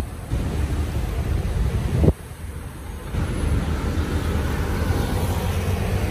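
Wind buffeting the microphone over a low street-traffic rumble. It cuts out sharply for a moment at the start and again for about a second from about two seconds in.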